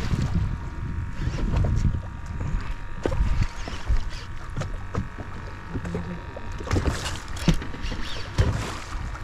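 Water sloshing and slapping against the hull of a fishing boat in rough water, with scattered sharp knocks and clicks of gear on the deck.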